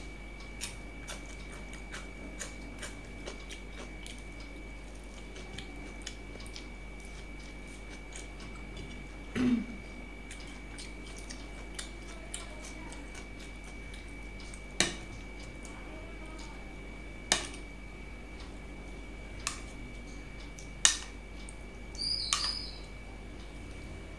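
Eating rice by hand from a steel plate: quiet handling sounds with several sharp clinks of a spoon and dishes against the plate and curry bowl, the loudest a little past the middle and near the end. A faint steady high whine runs under it.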